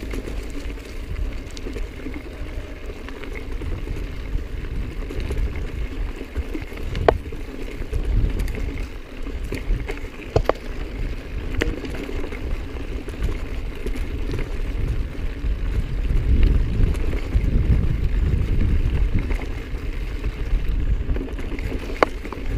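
Mountain bike riding down a dirt and rocky singletrack: a steady low rumble of wind on the microphone and tyres running over dirt and rock, with a few sharp clicks and knocks from the bike over rough ground.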